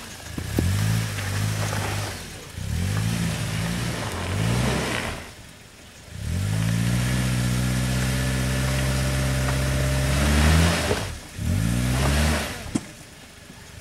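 Suzuki Jimny Sierra (JB43) 1.3-litre four-cylinder engine pulling over a rocky off-road section. Several short throttle blips come in the first five seconds, then a steady held rev of about four and a half seconds, which drops away and rises once more near the end.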